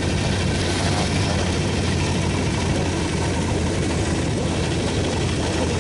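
Motorcycle engine running steadily while riding, a constant low hum under an even rush of wind and road noise.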